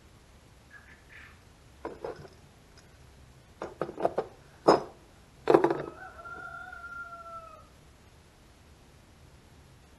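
A run of short sharp clicks and knocks, then a rooster crowing, ending in one long, slightly falling note.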